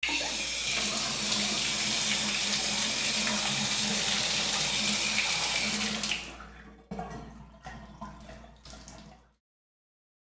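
Shower (regadera) spray running steadily, then shut off about six seconds in, leaving a few drips and trickles before it falls silent.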